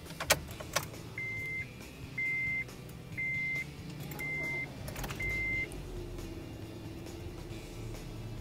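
Ignition clicks in a Honda Brio's cabin, then five short dashboard chime beeps at one steady pitch about a second apart. About five seconds in, the Brio's 1.2-litre single-overhead-cam engine starts and settles into a quiet idle.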